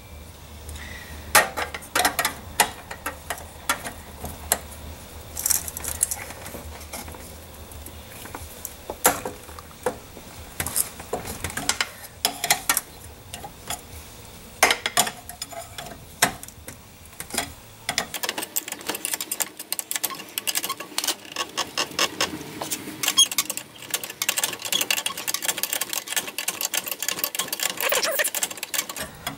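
Hand-tool work on the plasma cutter's air pressure switch fitting: scattered metal clicks and clinks, then from about two-thirds of the way in a fast, unbroken run of ratchet-like clicks as the wrench turns the fitting. A low background hum stops at about the same moment.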